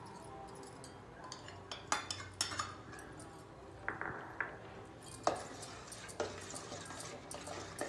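A spoon clinking and knocking against a cooking vessel in scattered, irregular taps as spices are spooned into a curd mixture and stirred.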